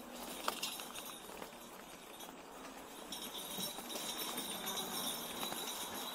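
Electric trike rattling and clinking as it bumps along a rough trail, with scattered light knocks and jingling.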